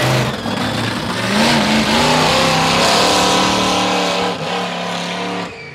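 Monster truck engine revving as the truck is driven around to warm it up, its pitch climbing about a second and a half in and then holding high.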